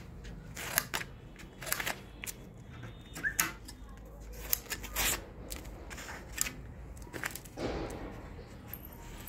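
Large tailor's scissors cutting velvet, a run of sharp, irregular snips as the blades close, with the fabric rustling as it is handled near the end.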